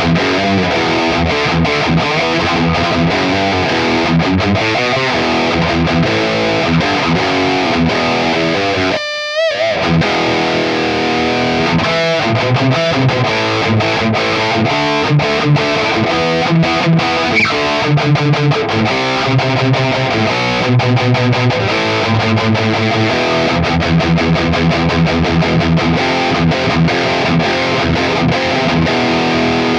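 Cort G260 electric guitar played through distortion, a continuous run of riffs and lead lines. About nine seconds in the playing briefly drops out to a single note wavering in pitch, then carries on.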